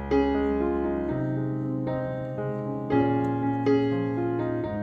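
Background piano music: held chords, with a new chord struck every second or so.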